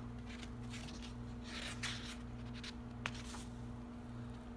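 Soft rustling and handling sounds, with a short click about three seconds in, over a steady low hum.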